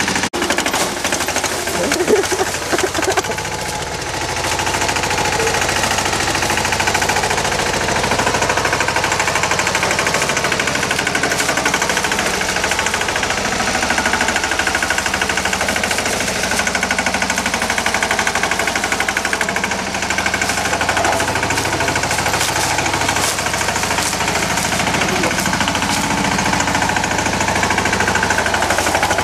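Yağmur YET-510 two-wheel tractor's engine running steadily with a fast, even clatter as the machine tills the garden soil.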